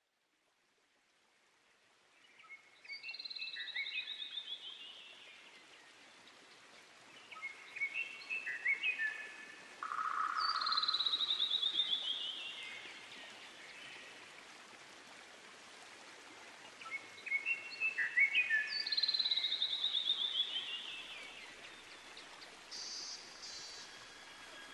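Songbird singing three times: each song a quick cluster of short high notes ending in a fast run of notes falling in pitch, over a soft steady hiss of outdoor ambience. Near the end, held musical tones begin to come in.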